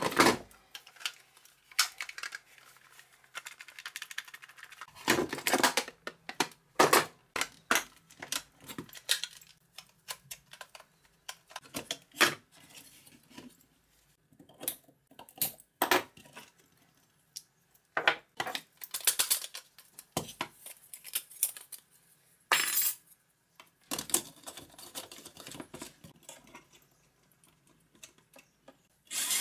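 Scattered clicks, taps and clatters of a plastic electric grater being handled and taken apart, its casing, drum and handle pieces knocked and set down on the workbench.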